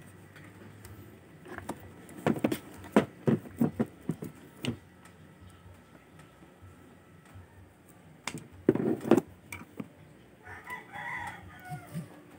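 Sharp metal clicks and knocks from hand tools at the valve rocker adjusters of a Honda Click 125 scooter engine, a quick run of them about two seconds in and another bunch around eight to nine seconds in. Near the end a rooster crows faintly.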